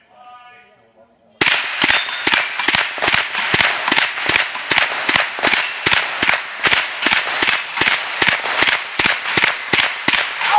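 A Sig Sauer 522 .22 LR semi-automatic rifle fires rapid shots, about three a second, at steel plate targets that clang and ring as they are hit and fall. The string of shots is preceded by a steady electronic start tone.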